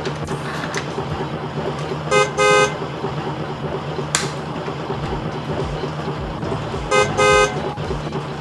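Toy car's electronic horn sounding a short beep then a longer beep, twice, about five seconds apart, over a steady low hum. A sharp click about four seconds in.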